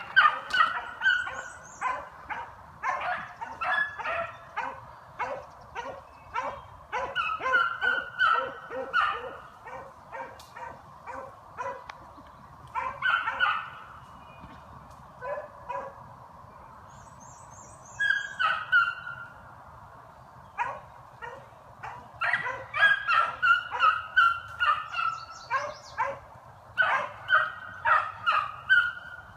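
Beagles giving voice: rapid, repeated barks and yelps from hounds running a scent trail, with a short lull a little past halfway.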